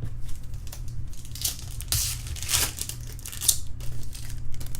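Foil wrapper of a baseball card pack being torn open and crinkled, in irregular rustling bursts, loudest about halfway through.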